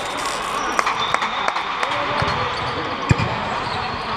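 A few sharp thuds of a volleyball being hit and bouncing on the court, the loudest about three seconds in, with a brief high squeak about a second in. Steady background noise and distant voices echo in the large hall.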